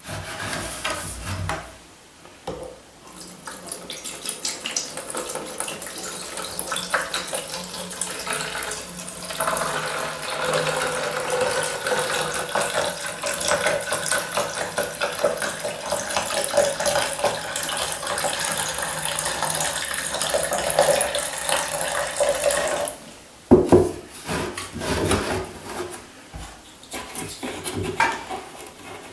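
Evapo-Rust rust remover poured steadily into a glass jar for about twenty seconds, stopping abruptly, followed by a few knocks and clinks.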